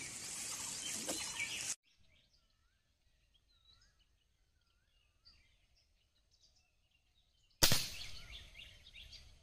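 A .177 air rifle fires once, about three-quarters of the way in: a sudden sharp crack that dies away over a second or so, as the pellet strikes the pond. Before it come a few seconds of near silence with faint, repeated bird chirps, and at the very start a short stretch of rustling in dry leaves and a plastic bag.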